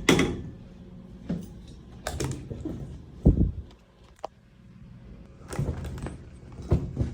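A series of irregular knocks and thuds, about half a dozen, with a short sharp click about four seconds in.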